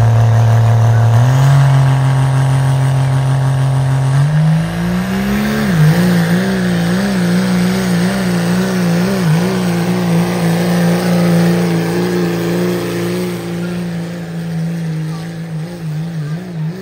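Dodge Ram's Cummins inline-six turbo-diesel at full throttle under heavy load, pulling a weight-transfer sled. Its note steps up in pitch twice in the first few seconds. It then wavers up and down about twice a second and slowly fades toward the end.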